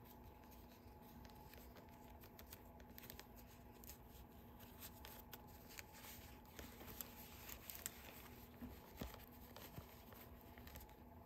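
Near silence: faint rustling of cloth doll pants and scattered small clicks as hands pull them up over a doll's body, over a faint steady hum.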